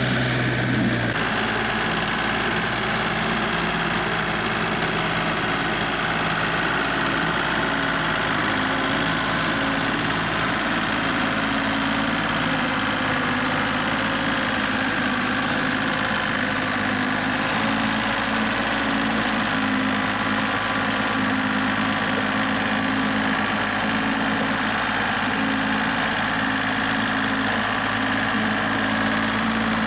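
Small Kubota diesel tractor engine running steadily under load as it pulls a harrow. Its note changes about a second in.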